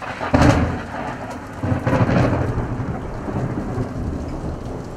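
Thunder over a steady hiss of rain: two loud peals, about half a second in and about two seconds in, each rolling on into a long low rumble that slowly fades.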